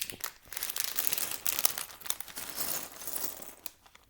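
Plastic bags of Lego pieces crinkling and rustling while being handled, with small clicks of pieces. The sound fades out near the end.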